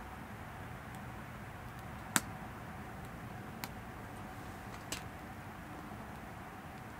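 Firewood crackling in a small Winnerwell wood stove: a few sharp, isolated pops over a steady low hiss, the loudest a little after two seconds in.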